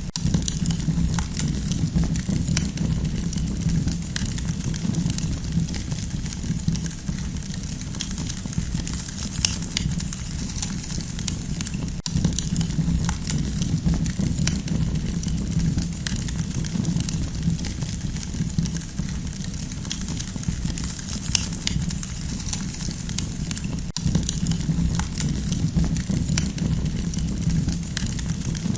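Campfire burning, with frequent sharp crackles and pops over a steady low rumble.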